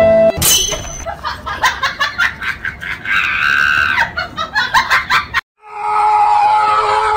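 A person's voice screaming and laughing, cut off abruptly about five seconds in, then a long, held, high-pitched cry.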